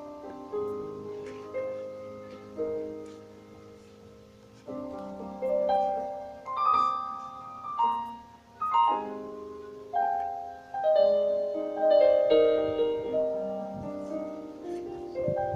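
Slow, soft piano music: chords and single notes struck about once a second, each left to ring and fade. It grows louder about a third of the way in.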